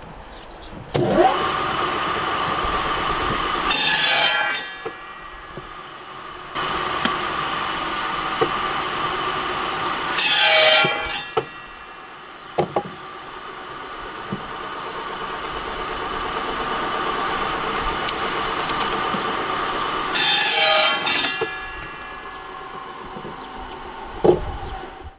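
A saw bench's motor spins up about a second in and then runs steadily. Three times it cuts through a log, each cut a loud rasp lasting about a second.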